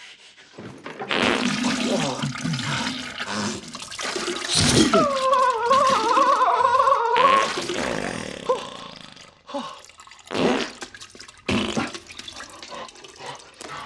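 Diarrhea and fart sound effects: a gushing, splattering noise, then a long wavering high-pitched fart about five seconds in, followed by a string of short spurts.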